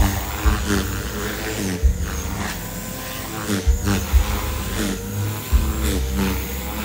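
Electric Gaui X3 RC helicopter in flight, its motor and rotors giving a steady whine that shifts in pitch as the pilot works the throttle and pitch. Irregular low thumps come through underneath.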